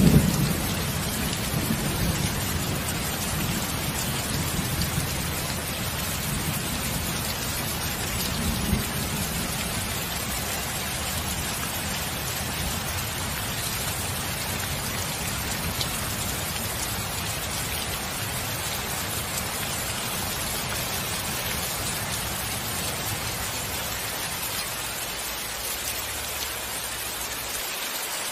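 Steady heavy rain, with a low rolling rumble of thunder that is strongest in the first few seconds, swells again around eight seconds in, and then dies away, leaving the rain alone.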